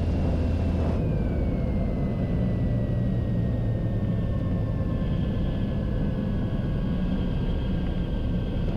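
Cessna 182 Skylane's engine and propeller heard from inside the cabin. The steady low drone shifts about a second in, and a thin high whine glides slowly down in pitch throughout, as power comes back on the landing approach.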